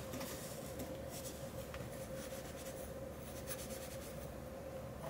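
Light scratchy rubbing and a few small clicks of hands handling things, faint over a steady hiss and a thin steady hum.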